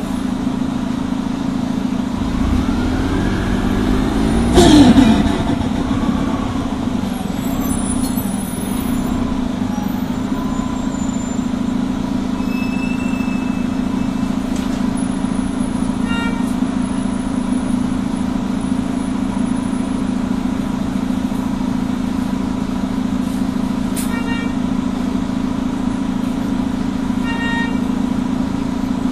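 Detroit Diesel Series 50G natural-gas engine of an Orion V CNG transit bus running with a steady drone, with a brief loud surge of noise, its pitch gliding, about five seconds in.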